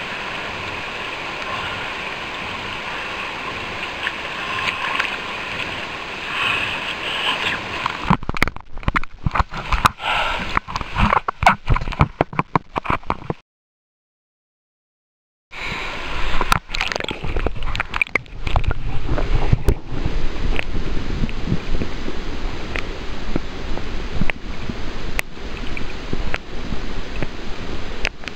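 Fast river water rushing, then sloshing and splashing with sharp clicks at the water's edge. After a brief silent break, muffled gurgling and knocking heard with the camera under the river's surface.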